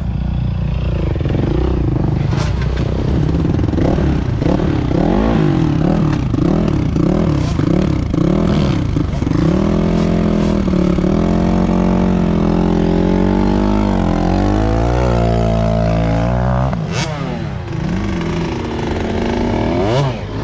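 Dirt bike engine being ridden hard, its pitch rising and falling over and over as the throttle is worked, then holding higher through a few gear changes, with a sharp knock near the end.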